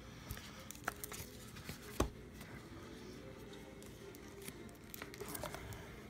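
Hands handling board game pieces: scattered faint clicks and rustles of cards, paper and packaging, with a sharper knock about two seconds in.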